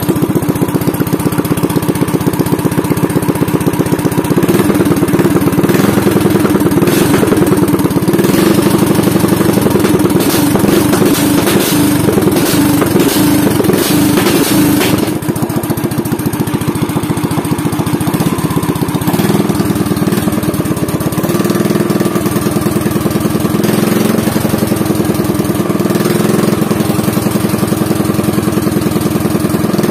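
Small single-cylinder katinting racing engine with an open straight exhaust pipe, running steadily with a rapid pulsing exhaust note. It is a little louder in the first half and settles slightly lower about halfway through.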